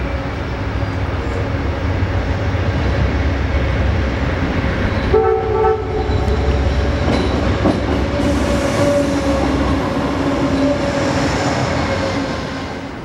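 Amtrak GE Genesis P42DC diesel locomotive running as it approaches and passes, with a short horn blast about five seconds in. From about eight seconds on, the passenger cars roll by with rail and wheel noise.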